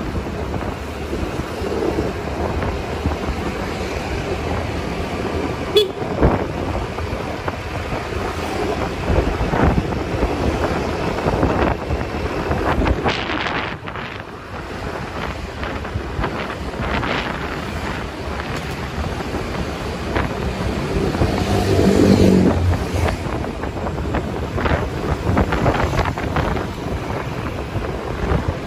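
Motorcycle riding through town traffic: a steady rush of engine and road noise, with other motorbikes and cars passing and a vehicle horn honking briefly about three-quarters of the way through.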